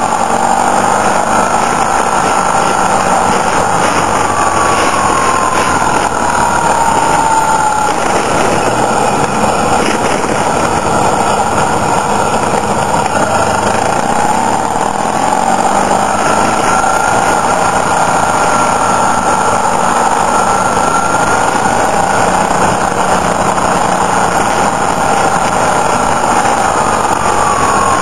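Motorcycle engine running under way, heard with a steady rush of road and wind noise. The engine note falls between about four and eight seconds in, rises again around fifteen seconds, and falls once more near the end as the bike slows and speeds up through the bends.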